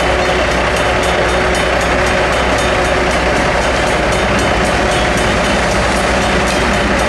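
Safetran mechanical crossing bells ringing with rapid, evenly spaced strikes while a freight train's boxcars roll across the grade crossing, the cars rumbling over the rails.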